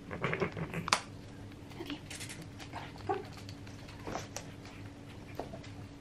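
Cats scampering and pouncing after a feather wand toy on a hard floor: scattered paw taps, scuffles and swishes, busiest in the first second, with a sharp knock about a second in.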